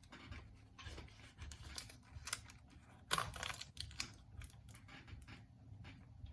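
Irregular small clicks, scrapes and rustles of hands working Scotch tape onto a cracked glass light globe, with a louder scrape about three seconds in.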